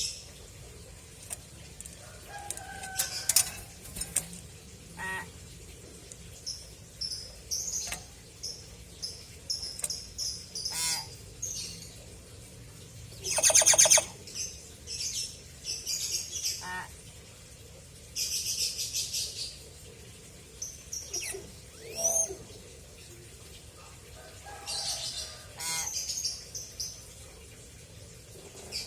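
Pet hill myna calling: a string of short whistles and chirps with gaps between them, and one louder, longer buzzy call about halfway through.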